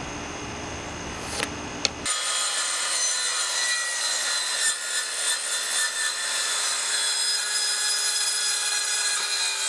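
Corded handheld circular saw running and cutting through a sheet of half-inch MDF, starting about two seconds in after a couple of sharp clicks, then holding a steady whine.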